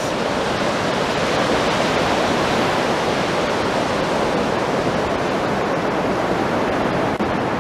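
Sea waves breaking and washing onto a sandy beach: a steady, unbroken rush of surf.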